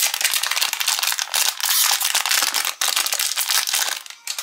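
Clear cellophane wrapper crinkling as it is pulled open by hand to free a small plastic toy: dense, fast crackling that dies away just before the end.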